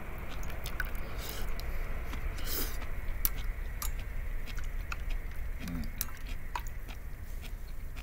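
A person eating miso soup with chopsticks from a metal pot: chewing, with scattered light clicks of the chopsticks against the pot, over a steady low background rumble.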